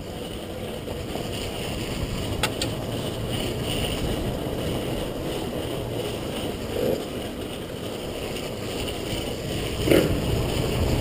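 Motocross motorcycle engines running at a distance as a steady rumble that slowly grows louder, with wind buffeting the microphone and a couple of short clicks about two and a half seconds in.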